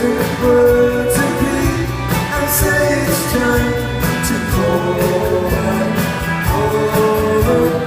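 A live rock band playing with singing, the voices holding long, sustained notes over the accompaniment.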